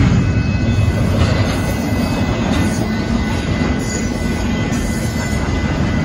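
Union Pacific intermodal freight train of container stack cars rolling past: a steady, loud rumble of steel wheels on the rails.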